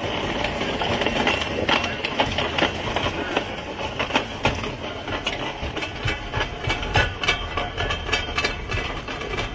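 A vehicle running, with an irregular rattle of clicks and knocks over a steady mechanical noise.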